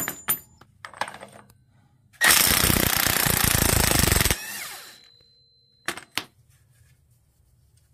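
An impact wrench hammers for about two seconds on the flywheel gland nut of an air-cooled VW engine, breaking it loose, then winds down with a falling pitch. A few light clicks come before it, and two sharp clicks follow about a second and a half later.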